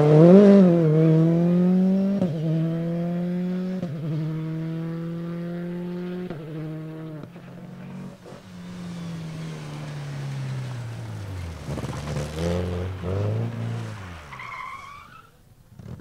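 Rally cars at full effort: one accelerates away hard, its engine note climbing and dropping back at three quick upshifts, then falling and fading as it draws off. About twelve seconds in, a second car's engine rises and falls through a bend, with a short tyre squeal near the end.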